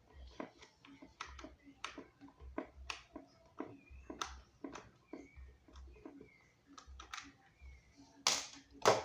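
Irregular clicks and knocks of an electric fan's plastic parts being handled and taken apart by hand, with two louder knocks near the end.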